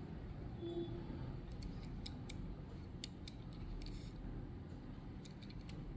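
Faint, scattered light clicks and taps of a small die-cast toy car being handled and turned over in the fingers, over a low steady background hum.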